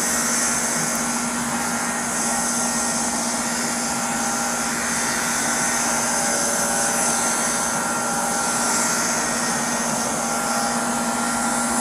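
Steady mechanical drone with a constant hum and hiss, unchanging throughout.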